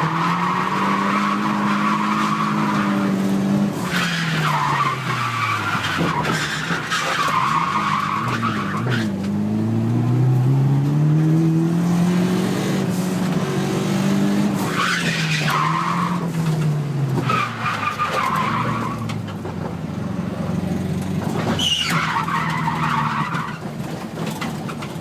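Nissan 200SX S13's turbocharged CA18DET four-cylinder engine rising and falling in revs while drifting, with tyres squealing in six or so separate bursts of a few seconds each.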